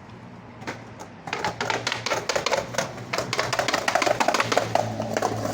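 Skateboard clattering rapidly down a set of stairs in a firecracker, the tail and wheels knocking on step after step in a fast, irregular run of clacks that builds louder and cuts off suddenly.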